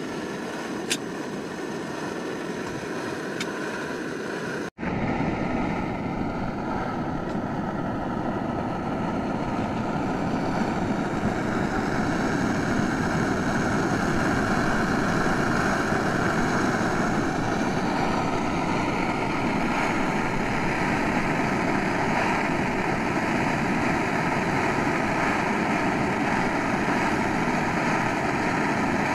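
Portable gas canister stove burning steadily under an aluminium mess-tin pan of food frying in oil, a continuous hiss and sizzle. It cuts out for an instant about five seconds in and comes back louder.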